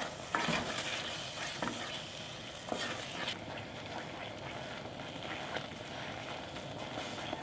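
Wooden spoon stirring and scraping thick sweet red bean paste in a stainless steel saucepan over medium-high heat, over a steady hiss of the paste cooking. Several louder scrapes stand out in the first few seconds.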